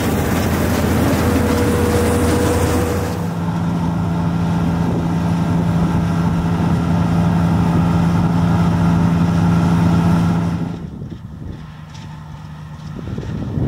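1983 New Holland combine harvester with a Fiat engine running steadily while combining wheat: a loud, rushing machine noise up close, then a steady low engine hum. About 11 seconds in, the combine is far off and its hum turns faint under wind on the microphone.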